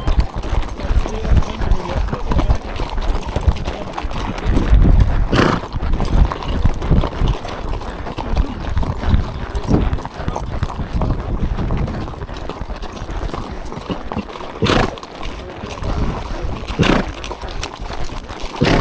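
Hoofbeats of a ridden horse on a forest trail, a dense, uneven run of thuds with a few sharp knocks along the way.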